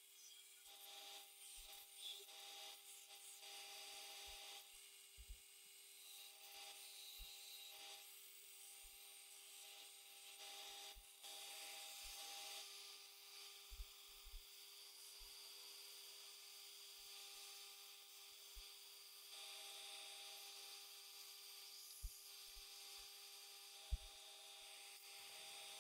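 Very faint Toolex 4x36-inch belt sander with a 40-grit belt sanding a plywood knife template: a steady motor hum under a hiss of abrasion, with a few soft knocks.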